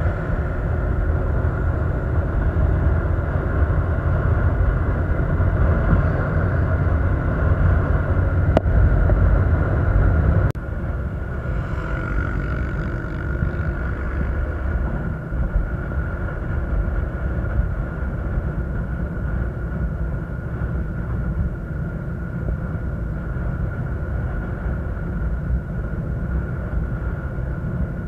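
Steady rumble of a vehicle on the move, with road and wind noise and a thin steady whine above it. The rumble drops abruptly about ten seconds in, then carries on at a lower level.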